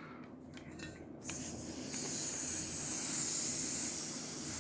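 Airsoft gas hissing steadily from a modified charging adapter as it is pushed into the Marushin M1887 gas shotgun's reservoir, starting about a second in after a few faint ticks.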